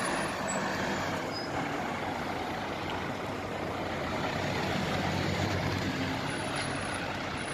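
Fire engine's diesel engine running steadily as the appliance pulls slowly in, a constant low drone under street noise.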